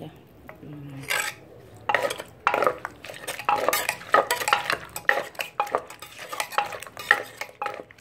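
Wooden pestle pounding wet chopped tomatoes, chillies and long beans in a clay mortar, while a metal spoon scrapes and clinks against the clay as it turns the mix. The knocks start about a second in and go on irregularly, two or three a second.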